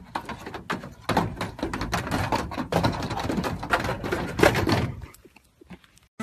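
Goat kids' hooves clattering on a corrugated metal shed roof as they run and jump: a dense run of knocks and taps for about five seconds, then a few scattered taps.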